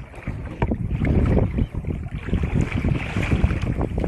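Wind buffeting the camera microphone in uneven gusts, with sea water slapping and sloshing against a plastic fishing kayak's hull.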